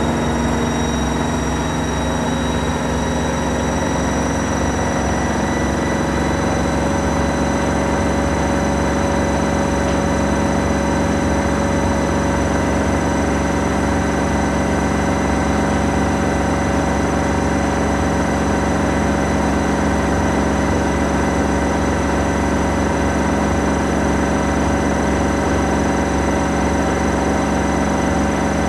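Washing machine running: a steady motor hum with high whining tones that drift slightly in pitch near the start.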